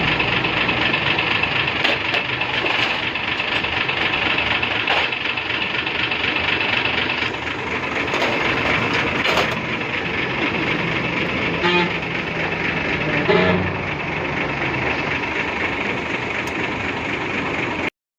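Truck engine running steadily, with two brief pitched sounds about two-thirds of the way through; the sound cuts off abruptly just before the end.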